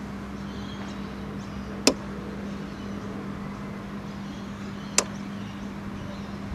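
Two sharp single clicks about three seconds apart, button presses on the Infobyte iM4 noise logger's top control buttons while it is shut down, over a steady low hum and wind rumble.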